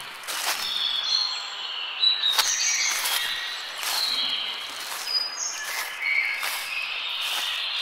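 Forest birds singing and calling: many short whistled notes from several birds, with sharp ticks and clicks scattered among them.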